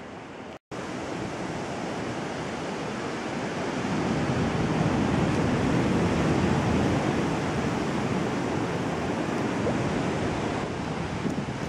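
Ocean surf on a coral reef and wind on the microphone: a steady rushing noise that cuts out briefly near the start and grows louder about four seconds in.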